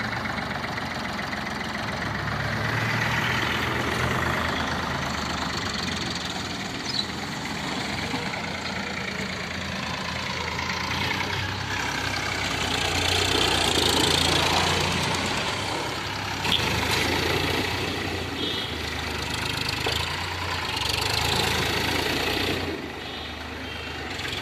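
Ford 3600 tractor's three-cylinder engine running as the tractor is driven round in tight circles, its note rising and falling with the throttle.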